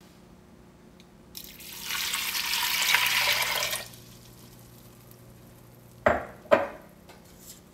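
Water poured from a glass measuring cup into a stainless steel stockpot of soaked green lentils, splashing steadily for about two seconds. About two seconds after the pour stops come two short knocks.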